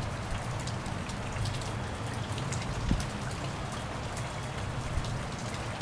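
Steady rain falling onto standing water and wet ground, a dense scatter of small drop ticks over an even hiss.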